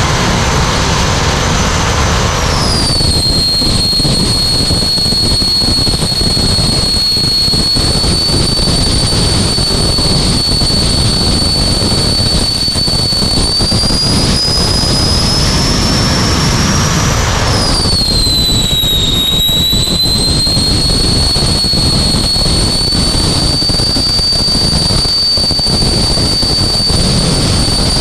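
Jetcar's jet engine running, heard from inside the car's cabin: a loud steady rush under a high turbine whine. The whine drops sharply in pitch twice, about two seconds in and again past the halfway mark, and each time slowly climbs back up.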